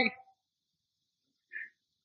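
Pause in a man's speech: the end of his last word, then near silence with one faint, short sound about one and a half seconds in.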